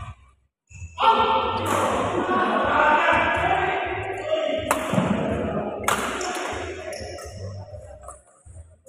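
Sharp racket strikes on a shuttlecock during a badminton rally, one about a second in and two more a second apart near the middle. Under them a loud, dense wash of sound starts suddenly with the first strike and fades out over several seconds.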